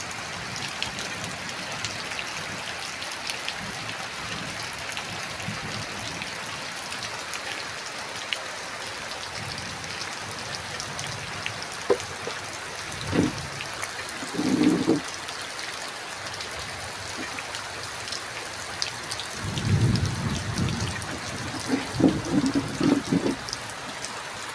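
Heavy rain falling steadily: a dense, even hiss of drops with scattered sharper drop ticks. A few brief low sounds come in the second half.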